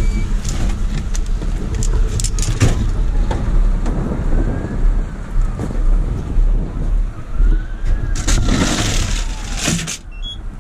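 Fire engine running with a deep rumble while a siren wails slowly up and down twice in the background. Knocks and rustling come from a firefighter climbing out of the cab, and there is a loud rush of noise about eight seconds in.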